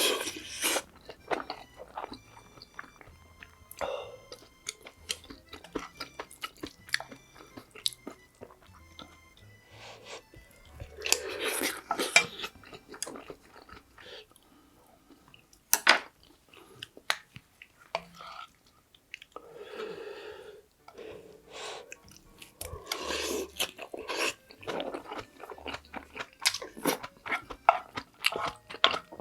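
A person chewing and biting food close to the microphone, with wet mouth clicks and smacks. Denser, louder mouthfuls come around a third of the way in and again after the middle.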